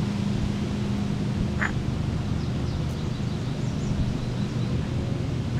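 Steady outdoor background noise with a low hum that fades out about four seconds in. A short bird call comes about one and a half seconds in, with faint high chirps after it.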